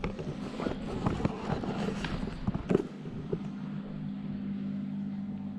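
Clicks, rustles and taps of hands handling equipment, ending in a sharper knock about three seconds in, over a steady low hum that carries on alone afterwards.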